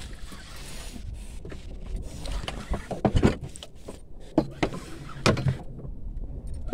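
Irregular knocks and clatter aboard a small fishing boat, over a low steady rumble.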